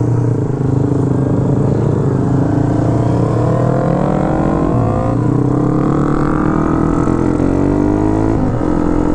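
Yamaha MX King underbone motorcycle's single-cylinder four-stroke engine accelerating through the gears: the pitch climbs, drops at a gear change about five seconds in and again near the end, then climbs again.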